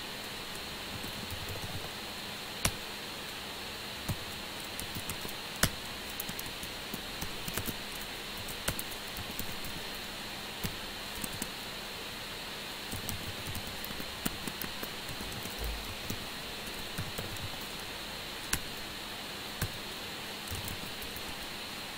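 Typing on a computer keyboard: scattered keystrokes, some single and some in short runs with pauses between, over a steady background hiss with a faint hum.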